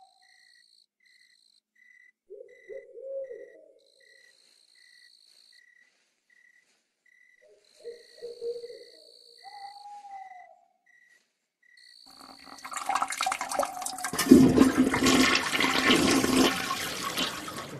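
Night ambience: an owl hoots a few times over a short chirp that repeats evenly about once every three-quarters of a second, with a thin higher tone coming and going. About twelve seconds in, a loud rushing noise swells up and lasts to the end.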